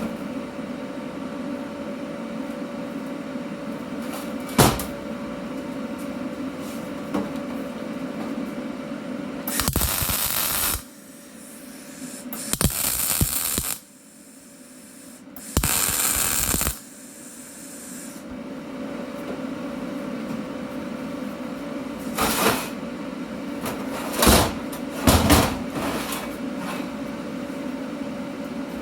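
Three short bursts of welding arc, each a hissing crackle of about a second, like tack welds, over a steady machine hum. A few sharp metal knocks come before and after the welds.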